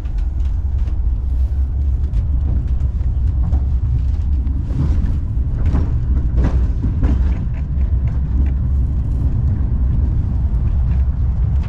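Steady low rumble of an airport tram running along its guideway, heard from inside the car, with a few short knocks and rattles about five to seven seconds in.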